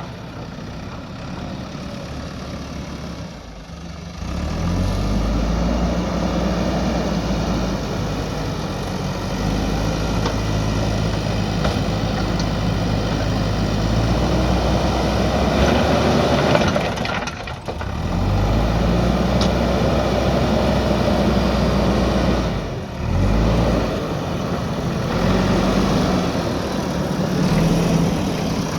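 JCB backhoe loader's diesel engine working, its revs rising and falling again and again under load, with a few brief drops.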